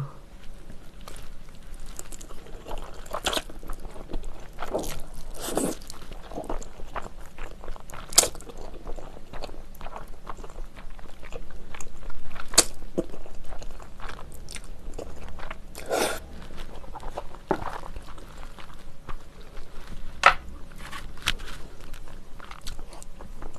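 Close-miked eating sounds: a mouthful of jajangmyeon noodles in black bean sauce being slurped and chewed, with irregular wet mouth clicks and smacks, a few of them sharper and louder.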